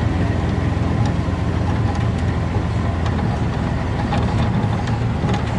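Tomcar off-road buggy driving over a rough, rocky dirt track, heard from inside its cab: a steady low engine rumble with a few light knocks and rattles from the ride.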